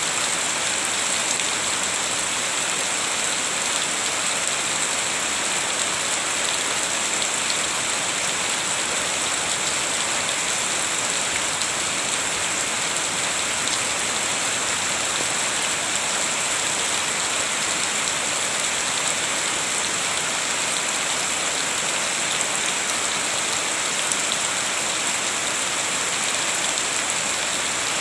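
Steady rain: an even hiss of dense falling drops with fine ticks of individual drops, unchanging in level throughout, with no thunder.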